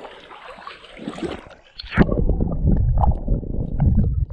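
Swamp water sloshing and gurgling against a GoPro worn by a hunting dog as it moves through the water. About two seconds in there is a sharp knock, then loud, muffled low churning of water against the camera.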